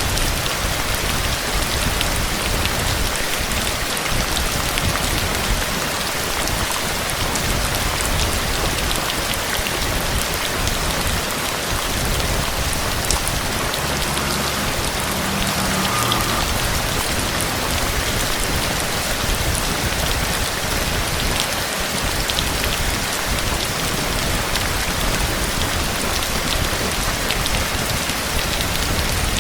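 Steady rain falling, with the sharp ticks of single drops striking close by.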